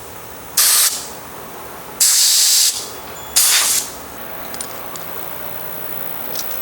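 Three short blasts of compressed air from an air blow gun, a little over a second apart, blowing out the fuel and idle passages of an outboard carburetor. A few faint clicks follow.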